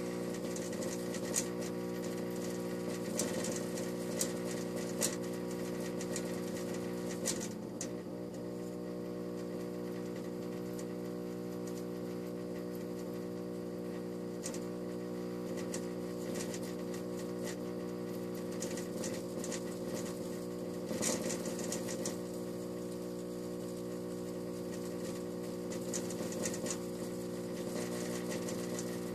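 Sylvania F96T12 fluorescent tube and its fixture at end of life, humming steadily with many overtones and giving irregular crackles and ticks, in clusters, one about 7 seconds in and another about 21 seconds in.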